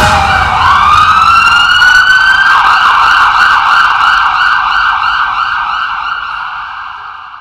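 Electronic emergency-vehicle siren. It wails, falling in pitch and then rising again, switches after about two seconds to a quick, steady warble, and fades out near the end.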